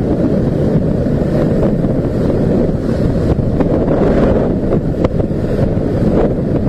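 Heavy, steady wind rumble buffeting the microphone of a motorcycle riding at about 55 km/h, with a few faint clicks about five seconds in.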